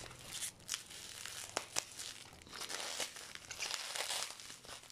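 Brown packing tape and plastic wrap being torn and peeled off a heavily taped parcel by hand: uneven crinkling and tearing with scattered sharp crackles.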